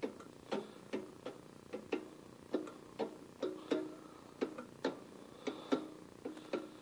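A fresh 6-32 tap turned slowly by hand in a drill press chuck, cutting threads in metal. It gives short, sharp clicks, roughly two a second at uneven spacing, each with a brief ringing note.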